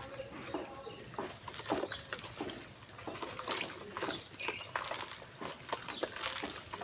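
Dry, crumbly clumps being crushed and broken between the fingers: a run of irregular crackly crunches. Short high bird chirps are heard now and then behind them.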